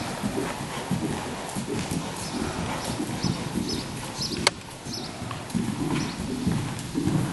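KWPN (Dutch warmblood) gelding trotting on soft indoor arena footing: dull hoofbeats in a steady rhythm. There is one sharp click about four and a half seconds in.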